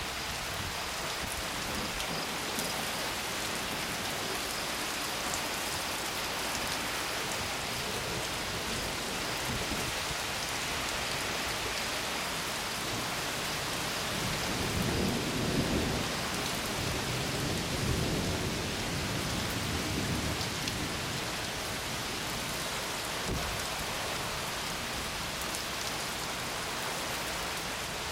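Steady rain falling, with a rumble of thunder rolling for several seconds about halfway through.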